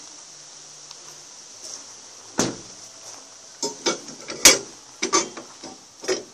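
Steel tow-bar carrier being fitted onto a van's tow hitch: a sharp metal knock about two and a half seconds in, then a run of clanks and knocks over the next few seconds, the loudest near the middle.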